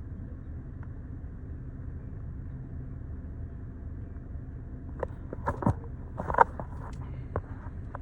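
Steady low rumble heard inside a parked vehicle's cab, with a short cluster of clicks and rustles between about five and seven seconds in, the loudest near six and a half seconds.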